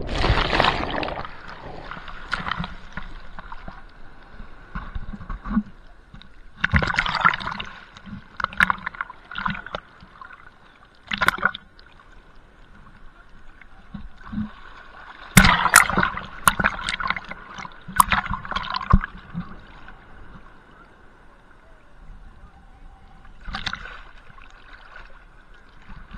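Small waves washing over a camera held at the waterline in shallow surf: sloshing and gurgling water, with irregular bursts of splashing as waves break over it, the loudest cluster about fifteen to nineteen seconds in.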